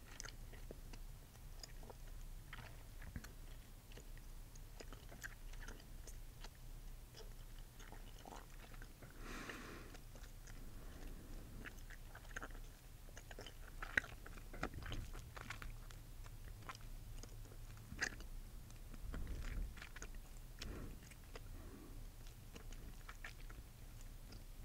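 Gum being chewed close to a microphone: a run of irregular small clicks and smacks from the mouth.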